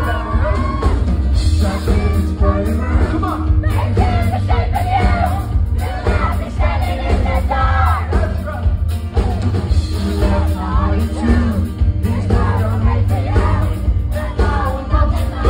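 Live pop-rock band playing, with a male lead singer singing over electric guitars, bass and drums.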